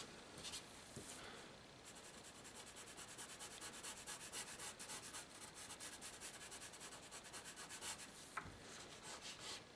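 Charcoal pencil scratching on paper in quick, faint back-and-forth shading strokes.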